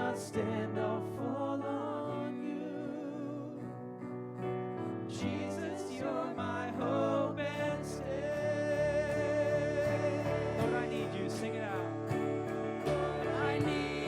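Church worship music: a band playing a slow worship song, with sung voices holding long wavering notes over the instruments.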